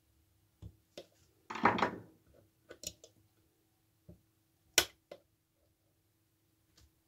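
A small wooden box and its metal clasp being handled: a series of small clicks and knocks, a brief louder scrape about a second and a half in, and a sharp click near five seconds.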